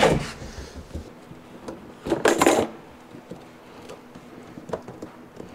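Handling noises as a plastic cyclone separator and its fittings are set onto and tightened against a plastic drum lid: scattered light knocks and clicks, with one louder scrape about two seconds in.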